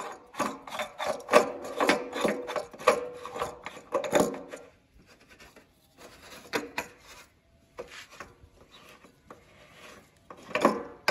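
Metal locking fuel cap twisted by hand on the filler neck of an International 9400 truck's fuel tank: rapid scraping clicks for about four seconds, then sparse quiet clicks, and a busier run again near the end. The cap turns without screwing down, which the owner takes for a cap too big for the neck.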